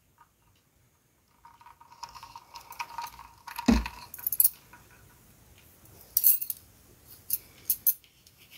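Light clinks and rattles of handling close to a phone's microphone. A single dull thump comes about three and a half seconds in, and a few sharp clicks follow over the next few seconds.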